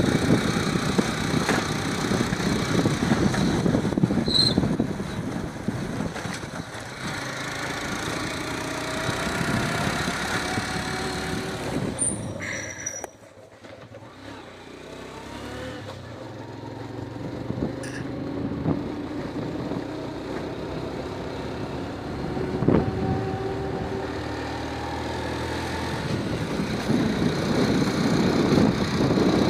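A motor vehicle running along a road, with steady engine and road noise. The sound drops sharply about 13 seconds in, then slowly builds back up.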